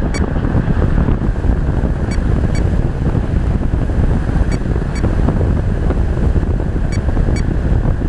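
Wind buffeting the microphone of a camera mounted on a flying radio-controlled model aircraft: a loud, steady, rough rush. Faint pairs of short ticks recur about every two and a half seconds.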